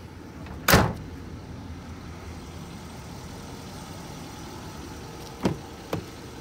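A single loud slam on a pickup truck about a second in, then two light clicks near the end as the rear crew-cab door is unlatched and swung open, over a steady low rumble.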